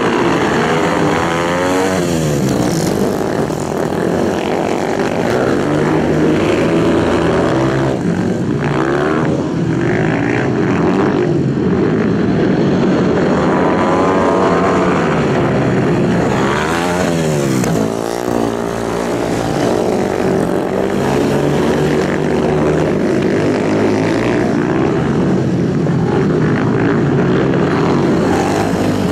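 Several dirt-track racing motorcycle engines running hard at high revs, their pitch sweeping down and back up as bikes pass and throttle through the turns, most clearly about two seconds in and again a little past halfway.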